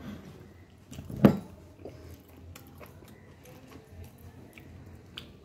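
A person chewing a bite of crispy fried potato nugget, with faint scattered crunching clicks and one louder sudden mouth sound about a second in.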